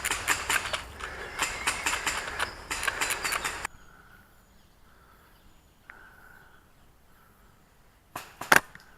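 Airsoft guns firing in rapid full-auto bursts, cutting off suddenly a little over a third of the way in. Then faint bird chirps over quiet outdoor background, and two sharp airsoft shots near the end.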